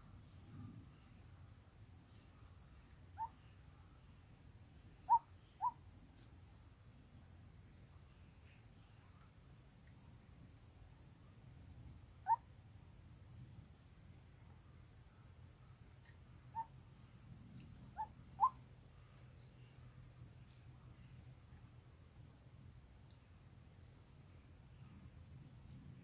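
White-breasted waterhen giving seven short, sharp single call notes, spaced out, with two of them in quick pairs. A steady high insect drone runs behind them.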